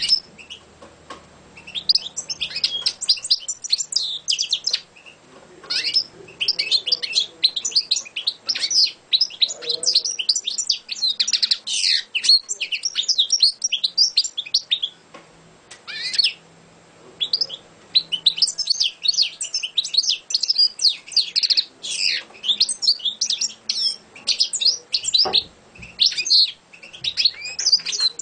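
European goldfinch singing: long runs of fast, high twittering song, with a short pause about halfway through.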